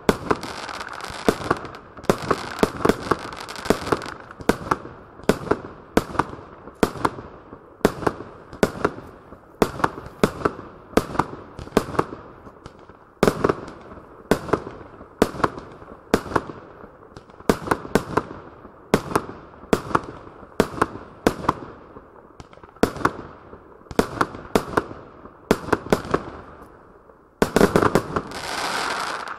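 Surex Tornado Bomb 49-shot firework cake (SFC15491) firing its shots in steady succession: a series of sharp bangs, roughly one to two a second, as shells launch and burst, with crackling between them. Near the end the bangs give way to a denser crackle lasting a second or two.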